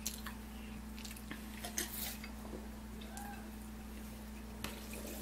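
Quiet eating sounds: a few soft clicks and smacks of chewing a taco and sipping a drink from a glass jar, over a steady low hum.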